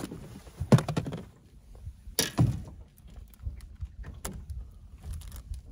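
A few sharp knocks and thuds on a fishing boat as a just-landed crappie and tackle are handled on deck, the loudest about a second in and another cluster soon after, with lighter knocks near the end.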